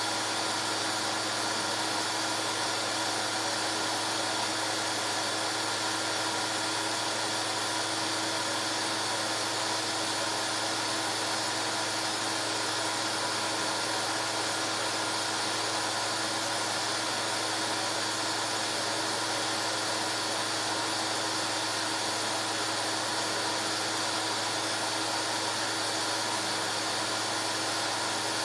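Steady mechanical whir with a constant hum, unchanging throughout: a film projector's motor and fan running while a silent home movie is played back.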